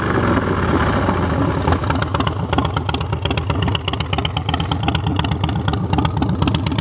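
2008 Harley-Davidson Street Bob's Twin Cam 96 V-twin engine idling with a steady pulsing beat.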